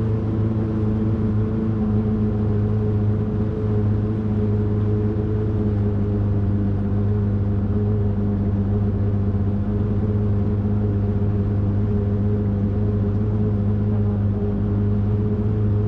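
Bayliner 3288 motor yacht's inboard engines running steadily under way, a constant low drone that holds one pitch throughout.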